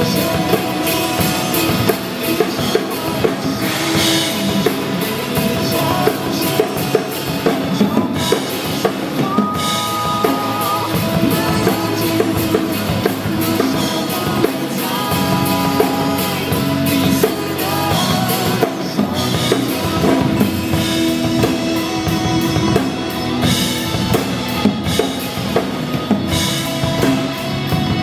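Drum kit played live over a recorded pop-song backing track: a steady, busy groove of bass drum, snare and cymbals under the song's melody.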